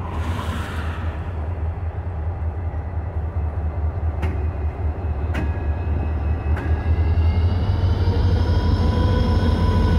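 EMD SD40-2 diesel locomotive with a 16-cylinder engine rumbling past at low speed, growing louder as it nears. Three sharp clicks come a little over a second apart near the middle, and a steady whine builds in over the last few seconds.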